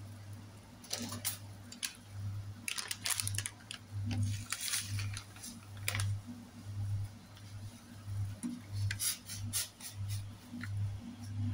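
A spoon stirring sliced sausages in a steel pot of water, with scattered scrapes and clicks against the pot. Under it runs a low hum that swells and fades about every three-quarters of a second.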